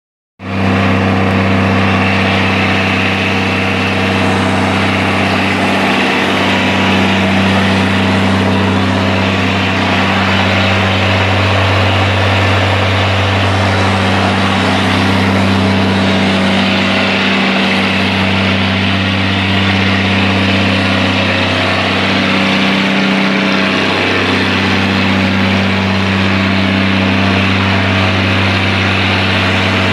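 International 946 tractor's diesel engine idling steadily with a low, even hum.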